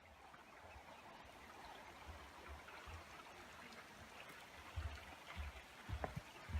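Faint, steady rushing like a flowing stream, with dull low thumps throughout and a few light clicks in the last two seconds.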